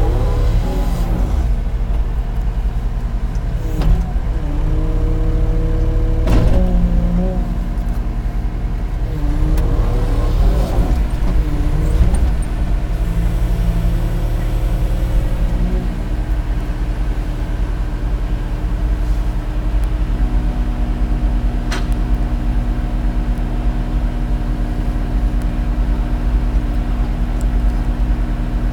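Bobcat E80 compact excavator running and working, its diesel engine droning steadily with tones from the machine that shift in pitch as it moves, then hold at a steady higher note in the second half. A couple of sharp clicks or clunks stand out.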